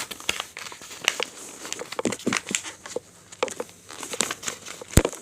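A sheet of thick paper being folded and creased by hand, with irregular crinkles and crackles. A single sharp tap comes near the end.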